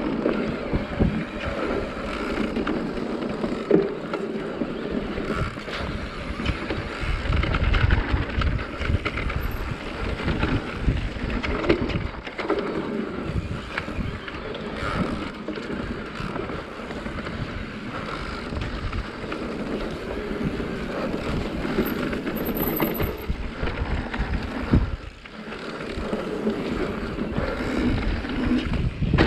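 Mountain bike riding fast down a dirt singletrack: tyres rolling over the trail and the bike rattling and knocking over bumps and roots, with wind buffeting the microphone. The noise drops away briefly about 25 seconds in.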